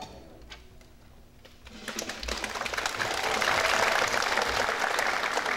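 Audience applause: after a short lull, clapping starts about two seconds in and builds to full, steady applause.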